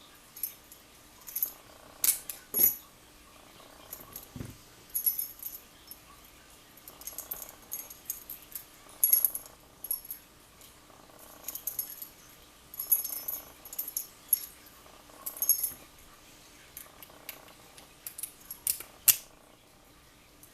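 Keys and the metal parts of a small-format interchangeable-core padlock being handled: repeated clusters of small metallic clicks and jingling.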